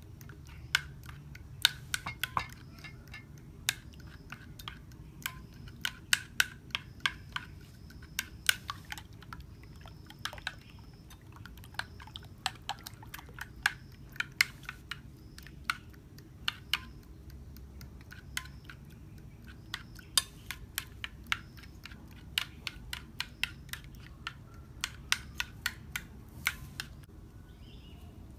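Irregular sharp clicks and clinks of kitchen utensils and dishes being handled during cooking, over a steady low background rumble.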